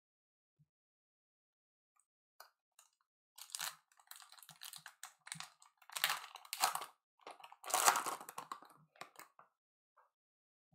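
Plastic wrapper of a baseball card pack crinkling and tearing as it is pulled open by hand, crackling in uneven spurts from about three seconds in until near the end.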